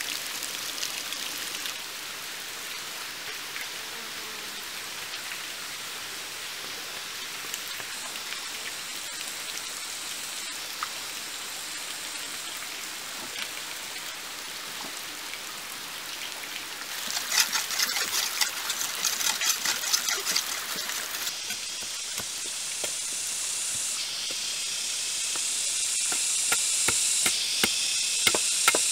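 Rainforest ambience with a steady high hiss. A little past the middle comes a quick run of clattering knocks, and scattered taps follow near the end, as bamboo poles are handled and wood is cut with a machete.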